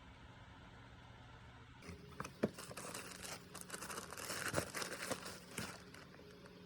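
Packaging being handled and opened, crinkling and rustling with a few sharp clicks and crackles, starting about two seconds in and dying away near the end.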